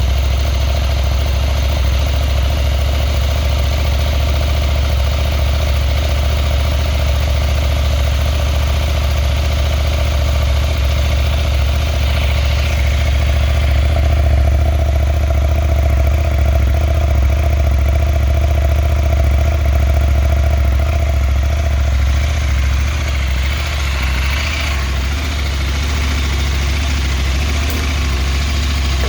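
Husqvarna Norden 901's parallel-twin engine idling steadily through its stock OEM midpipe and muffler, a deep even hum that swells a little in the middle.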